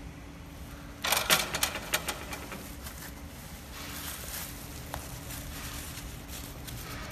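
Clear plastic film crinkling and crackling as hands grip and pull it over the rollers of an L-bar sealer, loudest in a burst about a second in, with softer rustles later, over a faint steady hum.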